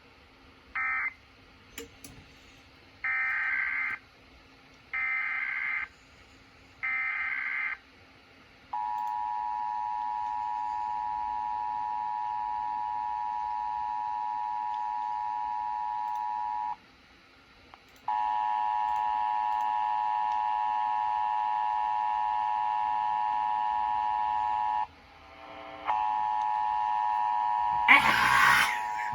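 Emergency Alert System test signals: three short bursts of SAME digital header data, then the EAS two-tone attention signal (853 and 960 Hz) held steady for about eight seconds. After a brief gap a second, richer alert tone sounds for about seven seconds, and a third starts near the end with a loud noisy burst.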